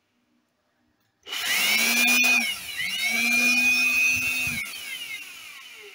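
Small handheld electric blower running with its nozzle over a laptop keyboard to clear dust. A steady motor whine starts about a second in, drops away briefly, comes back up, then winds down with falling pitch near the end.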